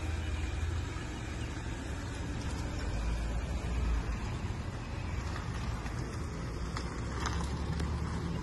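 A Cadillac SUV pulling away from the curb and driving off across an asphalt parking lot: steady engine and tyre noise over a low rumble.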